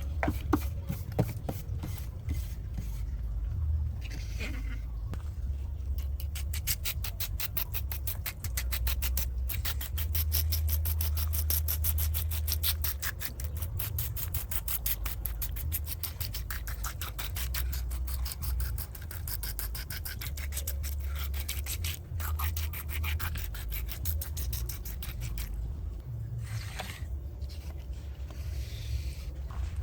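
Scrubbing on a mud-caked diecast model car: rapid, even rubbing strokes over a steady low hum, pausing briefly a few times.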